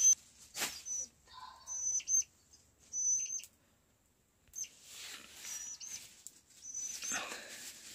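Young chicks peeping: repeated short, high-pitched peeps, several in the first half and a few more near the end. A noisy hiss joins them about halfway through.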